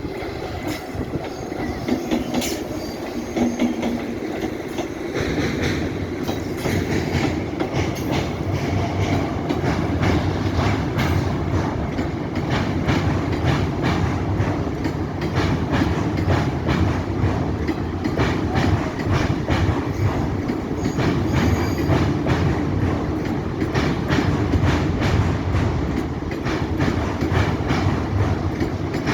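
Train wheels clattering rhythmically over rail joints as a train crosses a railway bridge, a steady clickety-clack over a continuous rumble. The rumble grows deeper and louder about five seconds in.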